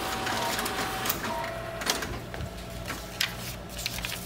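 Xerox office copier printing a job: a steady motor hum and whir with repeated sharp clicks from the paper-feed mechanism as the printed sheet is delivered to the output tray.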